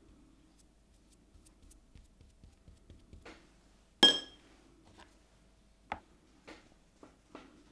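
A sharp, glassy clink about four seconds in that rings briefly, followed by a string of softer taps and clicks, like small hard objects being picked up and set down on a work surface.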